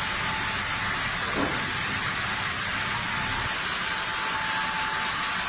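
Heavy wood-processing machinery running steadily: a constant mechanical noise with a strong hiss and a faint steady whine.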